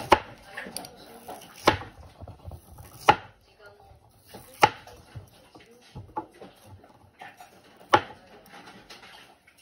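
A kitchen knife slicing through a bamboo shoot and striking a white plastic cutting board: five sharp chops at uneven intervals, with softer cutting clicks between them.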